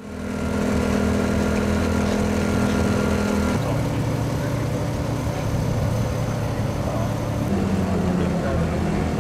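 Nissan Skyline GT-R R32 Group A race car's twin-turbo straight-six engine running at steady revs, with no rise or fall in pitch. The sound changes abruptly twice, about a third and about four-fifths of the way through.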